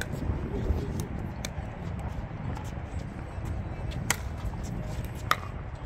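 Pickleball paddles hitting the ball: a few sharp pops, the loudest two a little over a second apart about four and five seconds in, over a steady low rumble.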